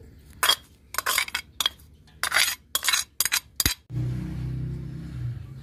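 A metal spoon scraping and knocking against a painted clay plate as sliced green chillies are pushed off it: a quick run of about eight sharp scrapes and clinks. About four seconds in this gives way to a low steady hum.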